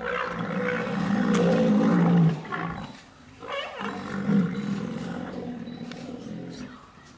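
Rhinoceros bellowing loudly during a clash between a bull and a cow with her calf: one call of about two seconds, then after a short pause a second drawn-out call that fades away.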